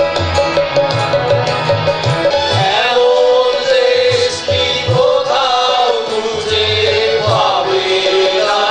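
Mixed group of voices singing a song together, accompanied by tabla, harmonium, keyboard and acoustic guitar. The singing comes in about two and a half seconds in over an instrumental lead-in with a steady drum rhythm.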